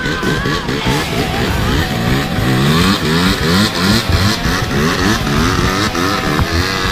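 Dirt bike engine revving in a rapid string of short rising sweeps, about two or three a second.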